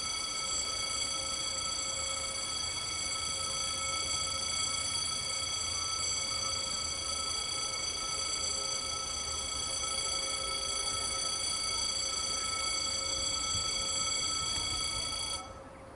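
Railway level crossing bell ringing steadily as a train approaches, then cutting off abruptly near the end.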